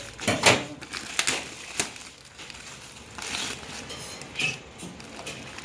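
Packaging being handled and torn open: irregular crinkling and crackling of plastic and paper wrapping, in uneven strokes with a louder burst about half a second in.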